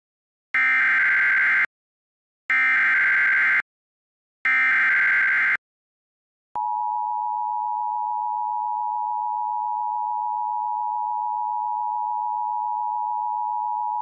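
Emergency Alert System tones. First come three short buzzy data bursts of the SAME digital header, each about a second long and a second apart, encoding a severe thunderstorm warning. Then, about six and a half seconds in, the steady two-tone EAS attention signal (853 and 960 Hz sounded together) comes on and holds without a break.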